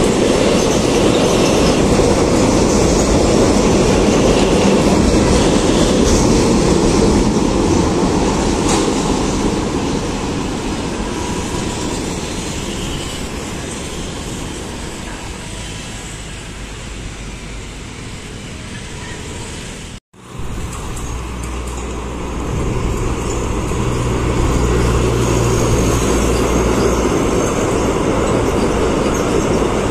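Philippine National Railways diesel train passing with rumbling rail noise, loud at first and fading away over several seconds. After a sudden cut about two-thirds of the way through, a steady low diesel engine drone rises with more rail noise from another train.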